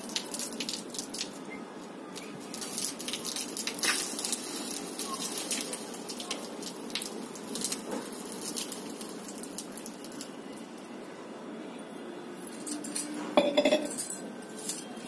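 Water pouring in a thin stream from a steel lota and splattering onto a concrete roof, with small clicks and patters. Near the end the steel pot is set down on the concrete with a ringing metallic clink, the loudest sound.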